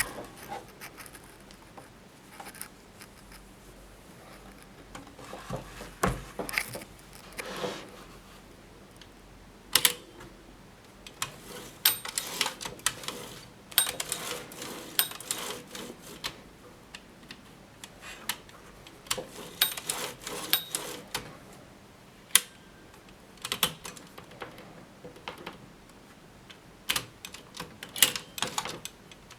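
Kolibri 1950s manual typewriter being typed on: irregular key strikes, some single and some in quick runs, with short pauses between.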